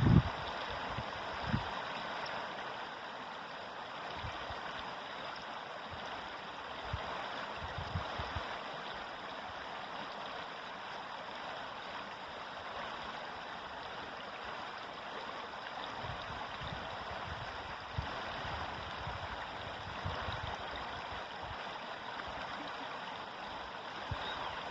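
River water flowing in a steady rushing stream, with occasional faint low thuds.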